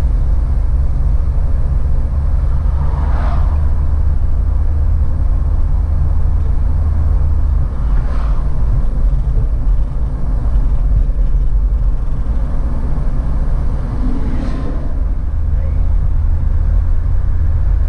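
Campervan driving at road speed: steady low engine and road rumble heard from inside the cab.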